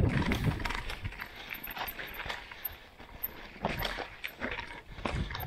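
Mountain bike rolling fast over a rough, rocky trail: irregular clicks, knocks and rattles from the tyres, chain and frame, over a low rumble that is heaviest near the start.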